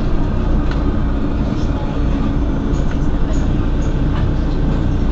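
Mercedes-Benz Citaro city bus engine idling steadily while the bus stands, an even low rumble.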